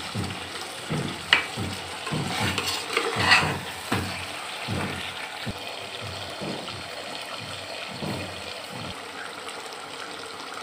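Chicken and turnip curry sizzling and bubbling in an aluminium pot while being stirred with a metal slotted spoon, the spoon scraping and knocking against the pot, most sharply in the first four seconds.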